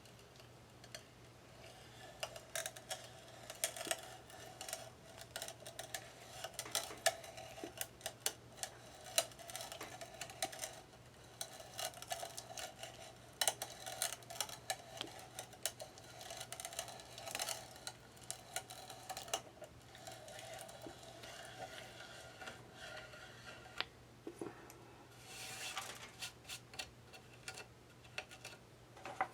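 Hand brace cranking a freshly sharpened auger bit as it bores into wood: a long run of irregular clicks and knocks with on-and-off creaking as the bit cuts.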